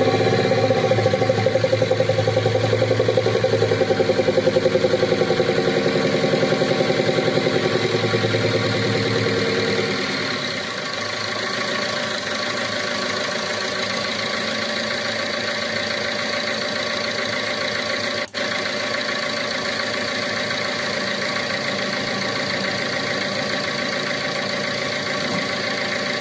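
Car engine idling with a fast, even knock. It runs louder and rougher for about the first ten seconds, then drops to a quieter, steadier idle. This is the engine noise that came with an attempt to clean the EGR valve and intake manifold without removing them.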